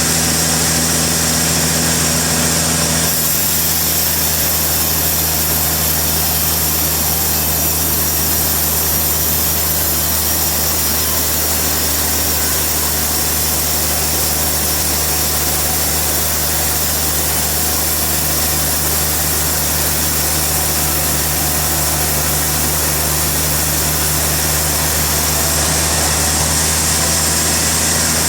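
Sawmill engine running steadily with a low hum. About three seconds in, a high hiss joins it and lasts until near the end, the sound of the saw cutting through the log.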